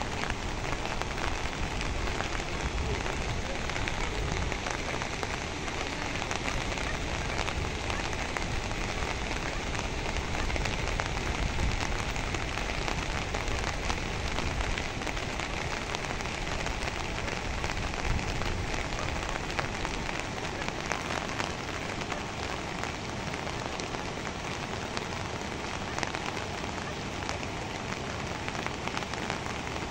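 Steady rushing noise of the Nakhu River in muddy flood, an even hiss of water with no rhythm, easing slightly about two-thirds of the way through.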